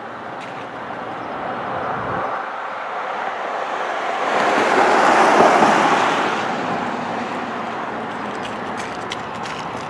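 A road vehicle passing by, its noise swelling to a peak about five seconds in and fading away again over the steady outdoor background.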